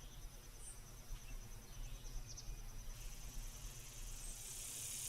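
Faint chirping of insects like crickets, a high, even, pulsing trill over a low rumble, with a hiss that swells towards the end.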